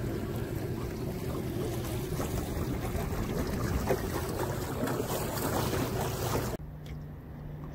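Small fishing boat's outboard motor running under way, a steady low hum under the rush of wind and water. About six and a half seconds in the sound cuts abruptly to a much quieter scene with a faint steady hum and a few light clicks.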